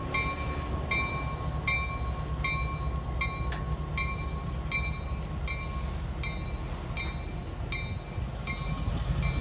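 Ex-Southern Pacific EMD SW900 diesel switcher No. 1195 rumbling low as it moves slowly, with its locomotive bell ringing steadily, about one strike every 0.8 seconds.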